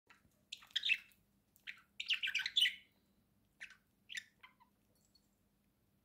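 Pet budgerigar chirping and chattering in short scratchy bursts, busiest about two seconds in, then a few single chirps and falling quiet for the last second or so.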